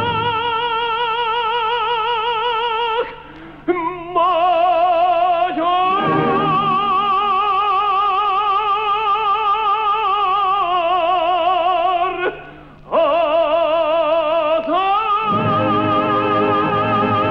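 Operatic tenor with orchestra: long held notes with wide vibrato, broken off briefly twice, about 3 and 12.5 seconds in. The full orchestra comes up strongly near the end.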